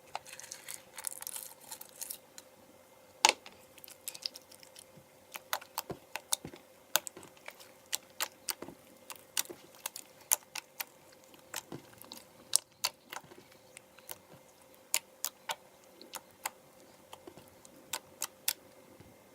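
Slime with drinking straws mixed in being squeezed, folded and stretched by hand, giving off irregular sharp clicks and pops from trapped air.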